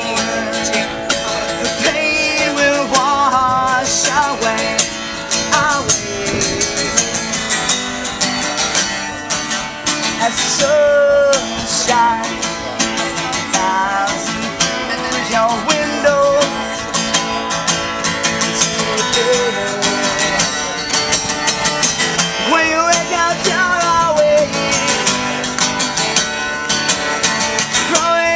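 A song with strummed acoustic guitar and a singing voice, starting abruptly.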